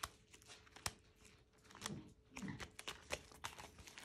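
Light crinkling and scattered sharp clicks of clear plastic zipper envelopes being flipped through in a ring binder.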